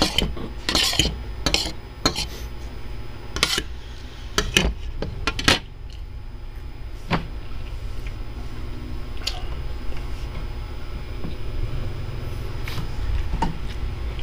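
Metal fork and spoon scraping and clinking against a ceramic plate: a run of sharp clinks and scrapes over the first five seconds or so. After that the cutlery goes still, leaving a steady low hum with an occasional single click.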